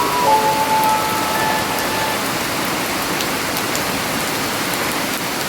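Steady hiss of noise with scattered faint crackles. A few faint held tones from the alarm's music fade out in the first two seconds.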